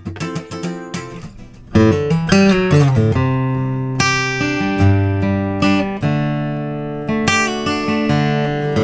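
Taylor 214ce acoustic guitar played fingerstyle: quick picked notes die away, then about two seconds in a louder passage of ringing chords and picked notes begins, the strings sustaining between plucks. The guitar has its original tuning machines and bridge pins, played as the stock reference in a tone comparison against brass bridge pins.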